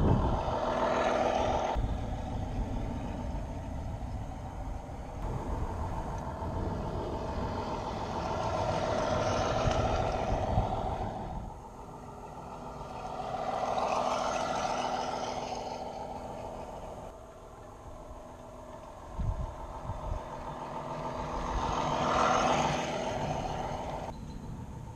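A garden-scale model railcar (a Brill Model 55 doodlebug) running along the track: a mechanical hum with a wavering whine that swells and fades four times, over a low rumble of the wheels on the rails.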